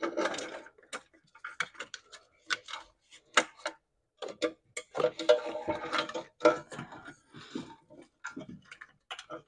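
Irregular clicks, knocks and rustling of plastic and metal parts as gloved hands work the battery tray loose in a Fiat 500's engine bay. The knocking is busiest near the start and again about five seconds in.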